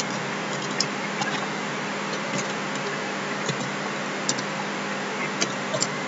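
Scattered light clicks of a computer keyboard and mouse, a few taps spread irregularly through, over a steady microphone hiss with a faint low hum.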